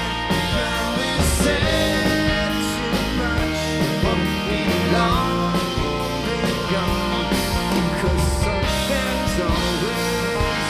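A rock band playing live: electric guitar, bass, Nord Electro 3 keyboard and drums, with a lead vocal over a steady drum beat.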